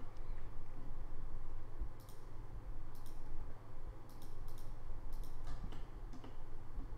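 Computer mouse clicking, with several irregularly spaced single and paired clicks, over a steady low hum.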